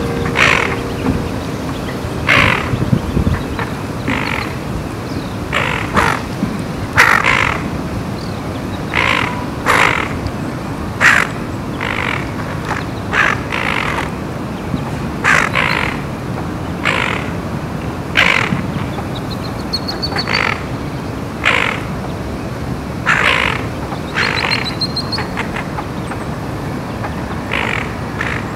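A bird's short, harsh calls, repeated about every one to two seconds over a steady background hiss. A small bird's brief high twitter comes in twice, about two-thirds of the way through and again a few seconds later.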